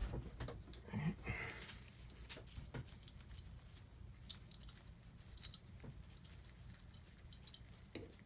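Faint, scattered clicks and light metallic ticks as a brass valve assembly is turned and seated by hand in a Fieldpiece SM480V refrigerant manifold body.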